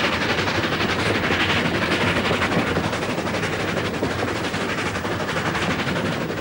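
A train running at speed, close by: a rapid, even beating over a steady rushing noise.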